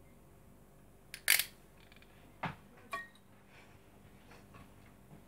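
A few sharp clicks: a spatula knocking against a glass baking dish, one loud knock just over a second in and two lighter ones a second or so later.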